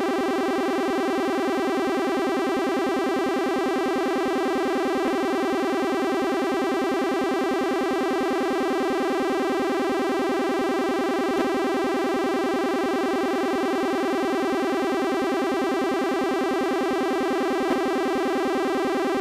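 Synthesizer holding a single steady, buzzy note rich in overtones, with a fast, even wobble and no change in pitch or loudness.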